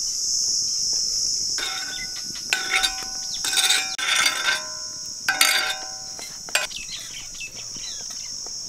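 Olive oil heating on a flat iron griddle, crackling and popping in irregular clusters as it spatters between about two and seven seconds in, over a steady high hiss.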